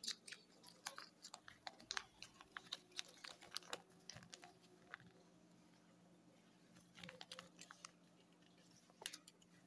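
Faint crisp crackles and clicks of a small paper toy instruction leaflet being unfolded and handled: a dense run over the first four seconds, then short flurries about seven and nine seconds in.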